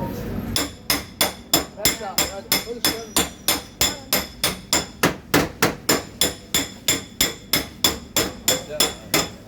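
Hammer tapping on car-body sheet metal in paintless dent repair on a fender. The taps come in a steady run of about four a second, each with a short metallic ring. They start about half a second in.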